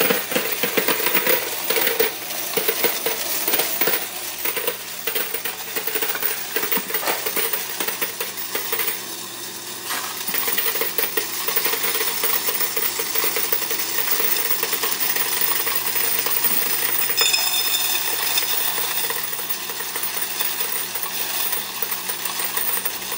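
Electric coin counting machine running a load of quarters: a steady, rapid clatter of coins being fed through and dropping into the cup below.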